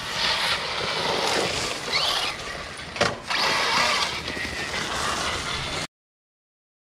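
Arrma Outcast 6S BLX RC truck driving hard: its brushless motor whines up in pitch about two seconds in over steady drivetrain and tyre noise. A sharp knock comes about three seconds in, then the sound cuts off suddenly near the end.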